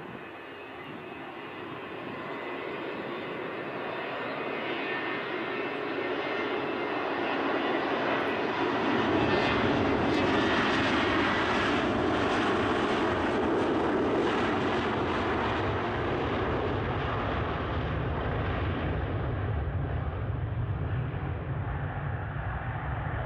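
McDonnell Douglas MD-88's twin rear-mounted Pratt & Whitney JT8D turbofans at takeoff power during the takeoff roll, growing steadily louder as the jet approaches and passes, loudest about halfway through. In the last few seconds, as it lifts off and draws away, the hissing top end fades and a deep rumble remains.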